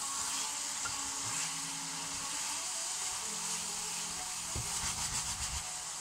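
Potatoes and beef sizzling in a frying pan while being stirred with a wooden spoon: a steady frying hiss, with a run of spoon scrapes and knocks against the pan near the end.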